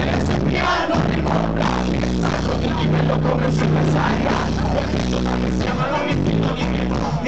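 Live rock band with vocals played loud over the stage sound system, heard from within the audience.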